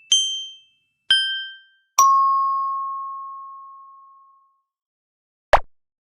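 Three bell-like ding sound effects about a second apart. The first two are short and high; the third is lower and rings out for about two seconds. A short pop comes near the end.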